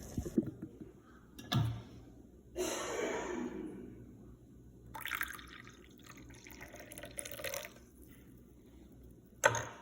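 Water being poured and dripping in a kitchen, in short separate spells, with a knock about a second and a half in and a sharper knock of a utensil or vessel near the end.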